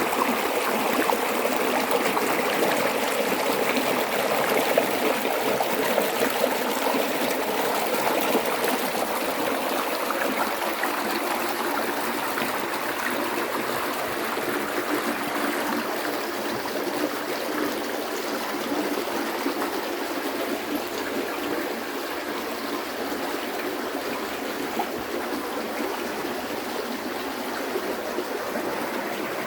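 Flowing river water rushing steadily, with no break, easing a little in loudness in the second half.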